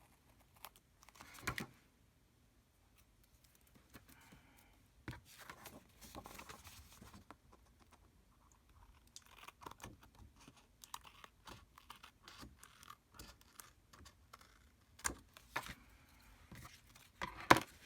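Paper and craft pieces being handled on a work table: scattered light rustles, taps and clicks, with a few sharper taps near the end.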